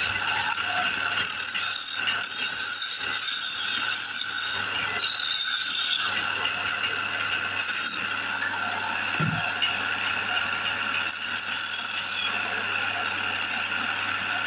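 Small wood lathe running with a steady whine, and a turning tool scraping the spinning wooden spindle in several spells of hiss, the longest from about a second in to nearly five seconds, and another near the end.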